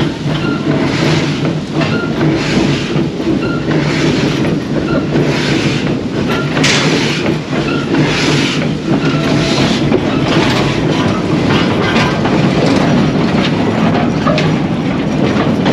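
Glover steam logging locomotive running along the track, its exhaust chuffing at an even beat of about one chuff every three-quarters of a second over a steady low rumble.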